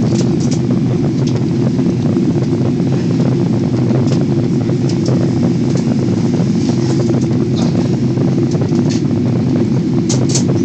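Steady cabin noise of an airliner descending to land: an even, low rumble of engines and airflow heard through the cabin, with a few faint high ticks, the clearest about ten seconds in.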